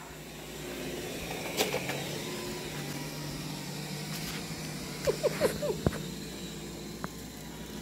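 Roborock S6 robot vacuum running with a steady motor hum, rising in level at the start and holding, with a few light clicks. A few short high squeaks stand out about five seconds in.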